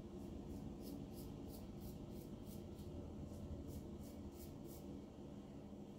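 Gillette New Short Comb safety razor with a Gillette Nacet blade scraping stubble off a lathered neck in short, light strokes, about three a second, stopping near the end.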